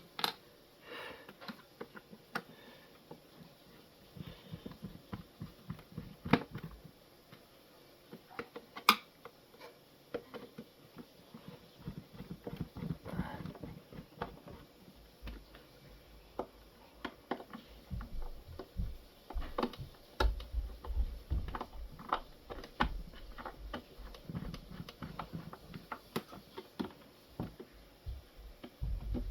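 Irregular small clicks, taps and knocks of plastic housing parts and screws being handled while a coffee machine is put back together, with heavier low thumps in the second half.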